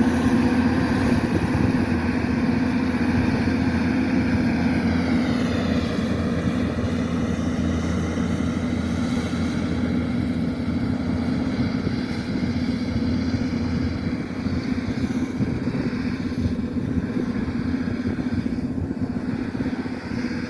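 Kubota DC-105X combine harvester running steadily while harvesting rice, a continuous engine and machinery drone. A higher whine drops in pitch about five seconds in, then holds steady.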